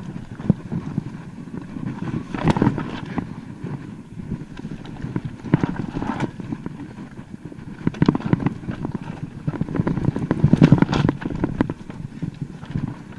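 Mountain bike riding down a rough, rocky trail: the tyres drum over stones and roots, with irregular knocks and rattles from the bike, heaviest in a few rough patches.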